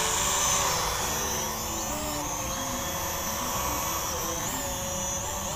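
Small quadcopter drone (Nabhyaan 1080 foldable) hovering in place, its motors and propellers giving a steady buzzing whine whose pitch wavers slightly as the optical-flow position hold keeps it in one spot.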